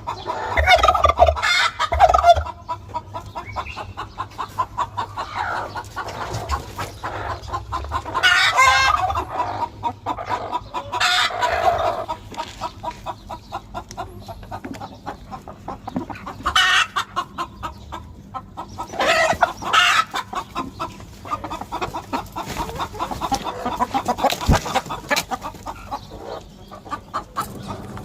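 A flock of chickens in a poultry house, clucking continuously, with louder calls rising out of the flock about half a dozen times.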